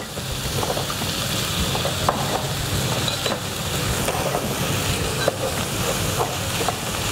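Diced pork sizzling in hot oil in a frying pan, stirred with a wooden spatula that scrapes and taps the pan in scattered clicks. The meat is being turned so that it starts to firm up.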